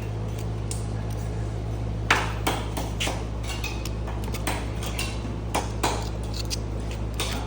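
Hand scraper chipping and scraping hardened old grease off the steel frame of a '69 Chevy C10, with irregular sharp metallic scrapes and clinks over a steady low hum.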